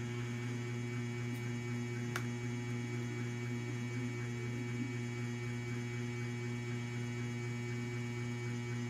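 Steady electrical hum, with one faint click about two seconds in.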